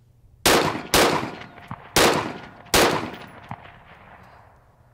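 Four rifle shots from an AR-15 fired standing, in an uneven string with longer gaps between the second and third shots, each followed by a rolling echo. Two fainter knocks come about three-quarters of a second after the second and fourth shots.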